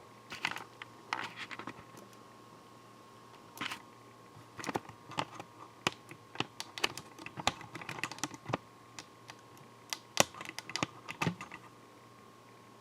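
Irregular run of sharp clicks and taps, thickest in the middle and stopping about a second before the end, over a faint steady high hum.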